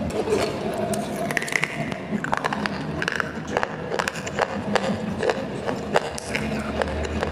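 Close-up chewing of dry clay rolls: irregular sharp crunches and crackles, several a second.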